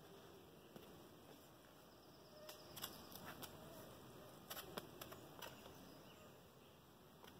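Near silence with a few faint scrapes and taps in two short clusters, typical of a climber's hands and shoes moving on boulder rock.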